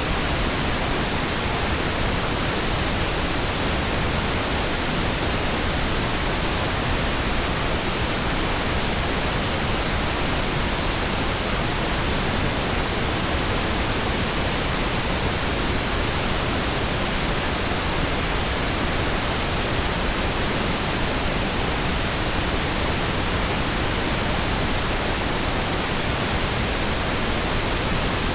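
Pink noise: a smooth, steady hiss spread evenly across the whole range, with no changes.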